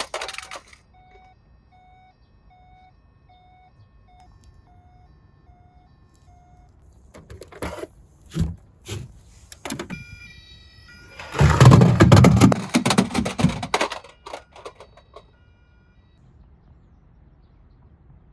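A faint toy siren beeps in an even series of about nine notes for several seconds. Then come knocks and the rattling clatter of small toy minicars running on a cardboard slope, loudest for a couple of seconds past the middle before dying away.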